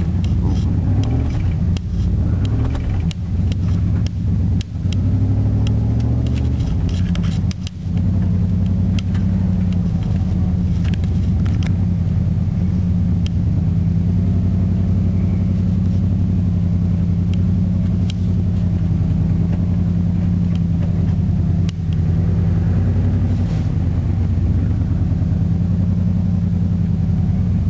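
Chevrolet 305 cubic-inch V8 pickup engine running under load as the truck is driven slowly over rough ground, heard from inside the cab, its speed rising and falling a little. Short knocks and rattles come through it from the bumpy ride.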